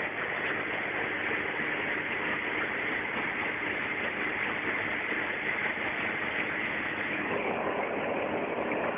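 Steady in-flight cabin drone of an Ikarus C42 microlight: engine and propeller noise mixed with rushing air. About seven seconds in, the sound grows fuller in the middle range.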